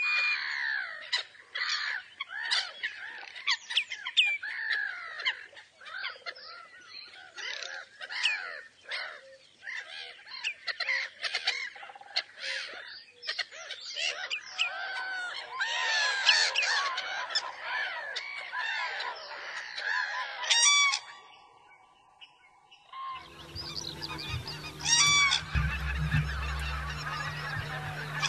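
A large flock of wild geese calling, many honking voices overlapping in a dense chorus. There is a short lull about three-quarters of the way through, after which the calls return over a steady low hum.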